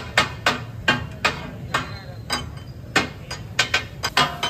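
Metal spatula blades striking a large flat iron tawa griddle as fish is chopped and fried katakat-style: sharp metallic clanks about two or three a second, in an uneven rhythm that quickens into a short flurry near the end.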